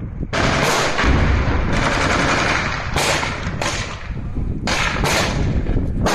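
Automatic gunfire from several weapons at once, fired close by in rapid bursts that overlap with hardly a pause.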